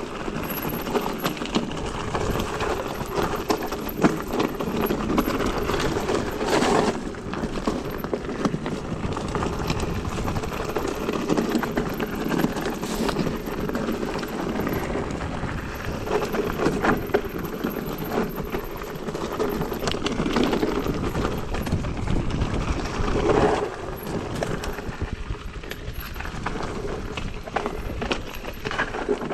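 Mountain bike riding over a rough, stony trail: tyres crunching on the ground and the bike rattling and clattering over bumps, with a steady low rumble.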